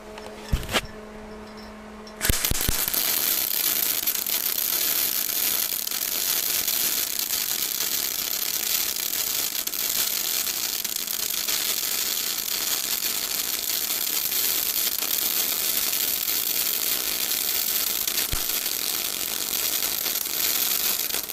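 MIG welding arc of a Bimarc MIG-500 semi-automatic welder at about 178 A and 21 V, a steady dense crackle that starts about two seconds in, after a single click, and stops near the end. The arc burns evenly without spitting spatter, the sign that the disconnected phase in the welder has been restored.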